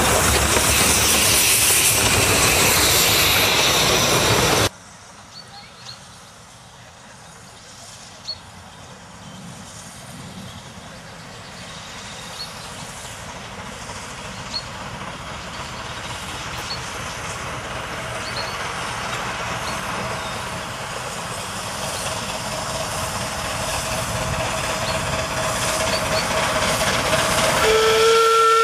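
A narrow-gauge steam train runs loudly past close by for the first few seconds, then after a sudden cut a small steam locomotive is heard approaching with its train, growing steadily louder. A steam whistle starts to sound near the end.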